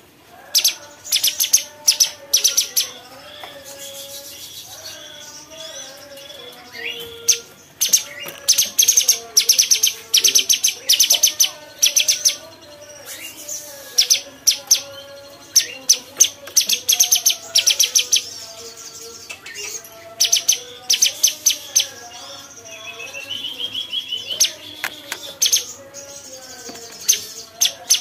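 Cucak cungkok songbird singing in repeated volleys of rapid, sharp high notes (the 'tembakan' bursts), with a rising trill a little before the end. A softer, lower warbling runs underneath throughout.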